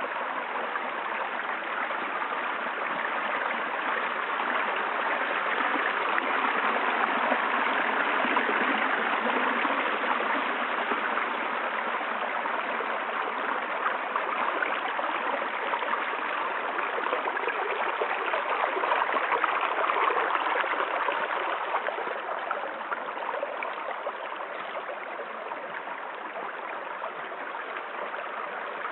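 Running water: a steady rushing splash that swells a little about a third of the way in and again about two-thirds through.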